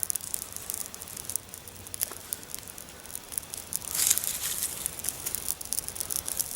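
Small fire of grass and sticks burning and crackling, with many sharp pops and a louder flurry of crackling about four seconds in.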